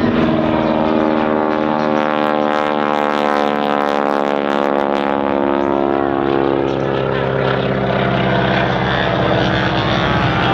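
Boeing Stearman biplane's nine-cylinder radial engine and propeller running in flight, a loud steady drone whose pitch drifts and bends through the middle as the aircraft manoeuvres.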